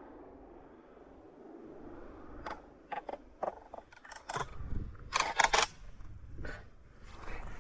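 Shotgun being handled after a shot: a run of sharp mechanical clicks and clacks over about four seconds, loudest in a quick cluster about five seconds in, as the action is worked and reloaded.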